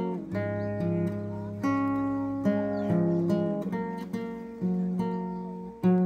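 Background music: an acoustic guitar playing plucked chords, each struck and left to ring out.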